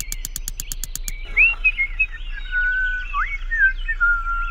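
A quick run of light ticks, about eight a second, for the first second, then birds chirping and whistling in short rising and falling notes.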